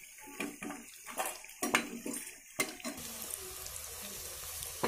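A few clinks of a utensil against the pan, then from about three seconds in a steady sizzle of kurkure dough sticks frying in hot oil.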